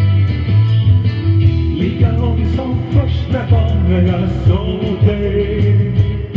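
Rock music on electric guitars, with a steady beat. From about two seconds in, a voice sings a melody over it.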